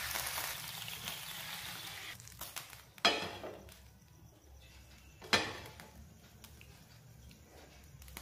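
Water hissing on a hot nonstick dosa tawa, fading away over the first two seconds as the pan is cooled with water before the batter goes on. Two sudden sharp sounds, each with a short fading tail, come about three and five seconds in.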